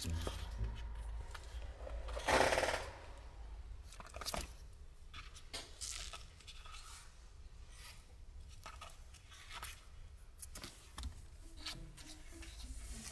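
Kittens scuffling on cardboard: claws scratching and scrabbling, with many small clicks and taps. One louder short noise about two seconds in.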